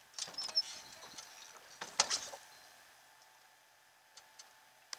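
Handling knocks and clicks on an aluminum boat deck: a quick cluster of small clatters in the first second, one louder sharp knock about two seconds in, then a few faint ticks.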